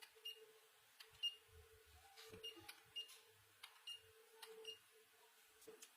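Near silence: faint scattered clicks and light knocks, about seven, over a faint steady hum.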